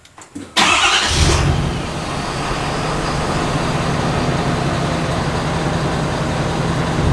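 Ford F-250 Super Duty's 6.7L Power Stroke turbo-diesel V8 starting, heard at the dual exhaust tips. It catches about half a second in with a loud flare, then settles into a steady idle.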